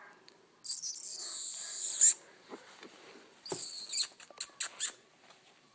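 Newborn chow chow puppy squeaking: one high thin squeal lasting about a second and a half, then a quick run of short sharp squeaks about four seconds in.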